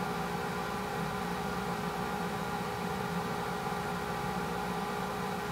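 Steady mechanical hum over a hiss, with several steady tones held unchanged throughout.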